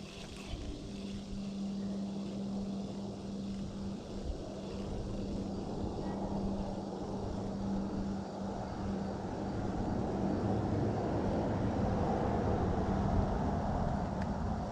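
Steady engine drone with a constant low hum, getting gradually louder toward the end.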